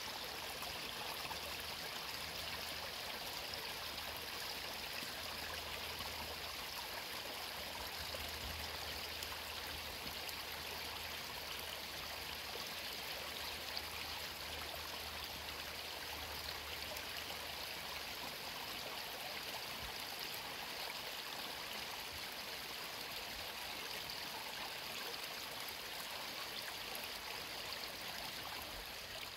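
Mountain creek flowing steadily: an even, unbroken sound of running water.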